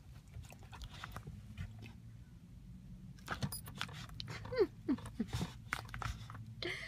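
Yellow Labrador biting and mouthing a plastic lemon-juice squeeze bottle: irregular clicks and crunches of teeth on plastic, with a few short falling squeaks a little past the middle.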